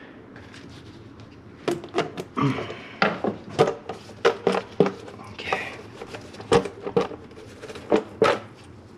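Valve cover on a VW VR6 engine being worked loose by hand: a run of sharp clacks and knocks with short scrapes, starting about two seconds in.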